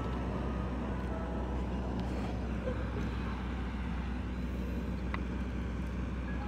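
Steady low rumble of an idling vehicle engine with street noise.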